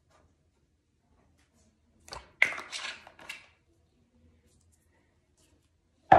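Handling noises: a few short scrapes and clicks as a small round tin is handled, about two seconds in. Then one sharp knock near the end, the loudest sound.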